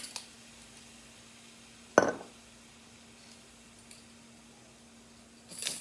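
A measuring spoon knocks sharply once against a jar about two seconds in, with a short clink near the end, over a faint steady hum.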